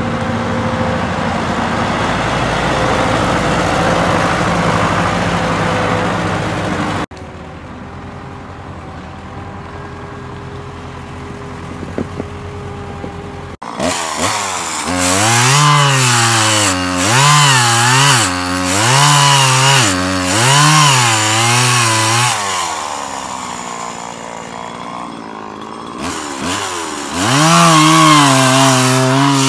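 A tractor's engine runs steadily with the backhoe. After a cut a quieter stretch follows, then a chainsaw revs up and down about once a second as it cuts through tree trunks. It drops back toward idle for a few seconds and revs hard again near the end.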